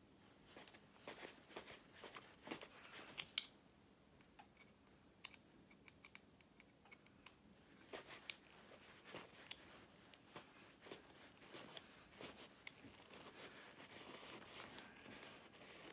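Faint handling noises of hoses and pump fittings being worked by hand: scattered small clicks, rubs and scrapes, with one sharper click about three and a half seconds in.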